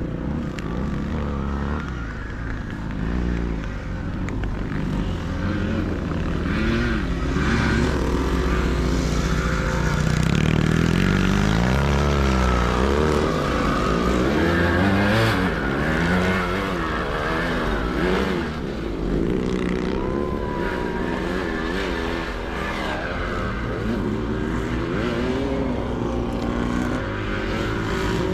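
Sidecar motocross motorcycles racing: several engines overlap, revving up and down as they pass, loudest about a third to halfway through.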